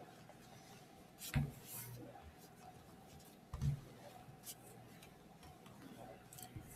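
Megaminx layers being turned by hand, faint plastic clicking and scraping with two louder clacks about a second and a half and three and a half seconds in. The puzzle has just been lubed with GAN Magic Lube and still turns slowly.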